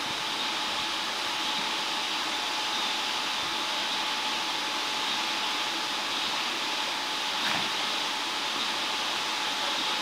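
Steady rushing of flowing river water, even throughout, with one light hollow knock about seven and a half seconds in as a plastic kayak is handled at the bank.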